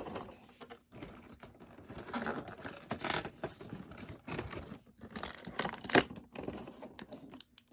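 Plastic and cardboard toy packaging being handled and opened: continuous crinkling and rustling, with a few sharp clicks, the loudest about six seconds in.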